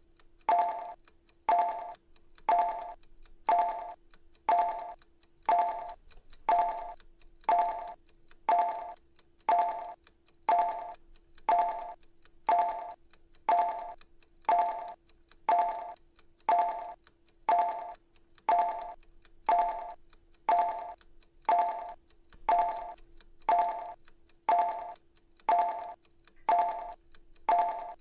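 Countdown timer sound effect: a short pinging tick once every second, each one fading quickly, over a faint steady low tone.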